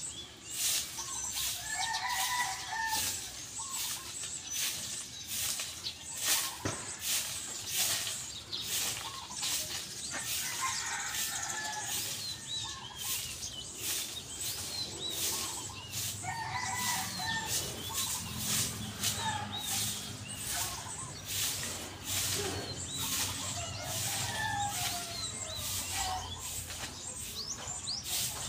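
A long-handled broom sweeping a dirt and gravel yard in a steady rhythm of short scratchy strokes. Chickens and a rooster call several times over the sweeping.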